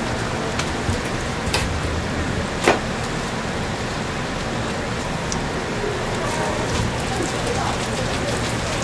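Hotteok pancakes deep-frying in hot oil: a steady sizzle, with a few sharp clicks, the loudest about two and a half seconds in.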